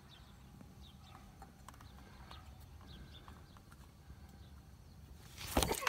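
Faint scattered clicks and taps of a hand working a metal transmission dipstick tube among engine parts, then a louder knock and rustle near the end.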